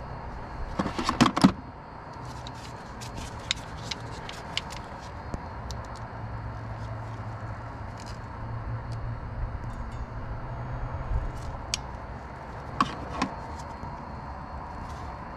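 Clicks and metallic clinks of a hand crimping tool being worked on a wire terminal on 12-gauge wire: a cluster of loud clicks about a second in, scattered small ticks after, and two more clicks near the end, over a steady low hum.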